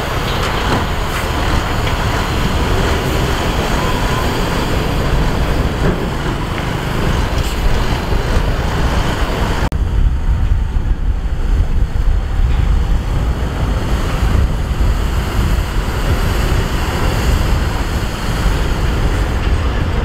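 Heavy diesel dump trucks running with a steady low engine rumble, with wind on the microphone. About halfway through the sound changes abruptly: the high hiss drops away and a duller rumble carries on.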